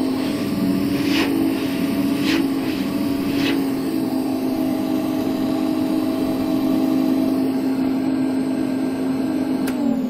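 Soviet Ural vacuum cleaner running steadily with its motor bearings freshly greased, a constant hum over the rush of air. Near the end a click as it is switched off, and the pitch starts to fall as the motor spins down.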